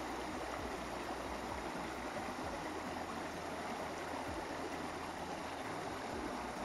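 Shallow mountain creek running over rocks: a steady babble of flowing water.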